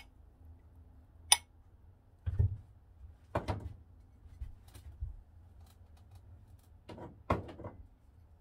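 Sharp clicks and knocks of small objects being handled, with one loud click about a second in and short clusters of knocks around two and a half, three and a half and seven seconds in.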